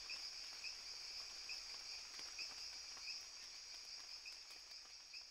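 Faint insect chorus: a steady high-pitched drone with a lower chirp repeating about twice a second.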